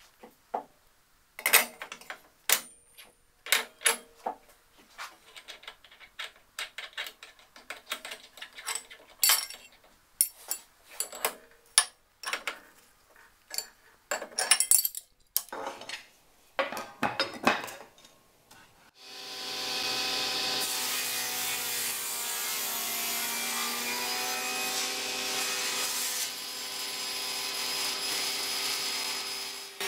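Metal clinks and knocks of a spanner and a sharpened circular saw blade being fitted on a table saw's arbor, one knock ringing briefly. About nineteen seconds in, the saw's motor starts, runs up over about a second and then keeps running steadily with the blade spinning.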